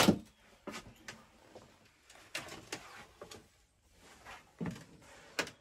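Scattered soft knocks and rustles, about eight in all and irregularly spaced: footfalls and camera-handling noise of someone moving through a small yacht's cabin.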